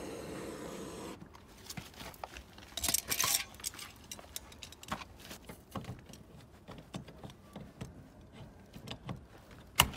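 Blowtorch flame hissing steadily, cut off abruptly about a second in. Then scattered metallic clicks and scrapes as a hand tool grips and works at a scorched euro-cylinder door lock, with a louder scraping rattle about three seconds in.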